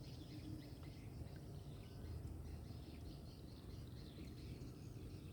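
Faint outdoor ambience: a steady low rumble with many small, scattered chirps of birds and insects.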